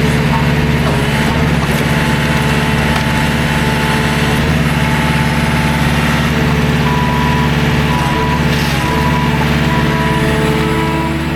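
Skid steer engine running steadily, with a higher whine coming and going over it.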